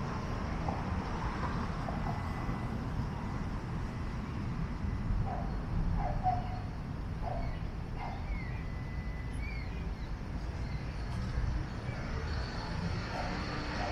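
Steady low rumble of vehicle traffic, with a few faint short bird chirps in the middle.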